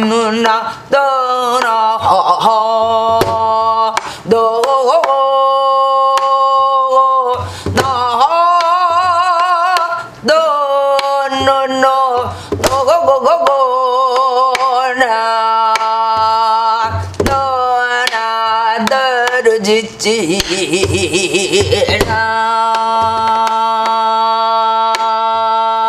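A woman singing gueum, wordless Korean vocables, in long held notes with wide vibrato and sliding attacks, phrase after phrase with short breaths between. Dull thumps from a sori-buk barrel drum mark the beat under the voice.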